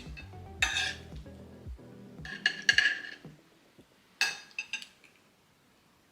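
Kitchen utensils clinking against dishes: a sharp clink, a cluster of clatters, then two more clinks, over background music that stops about halfway through.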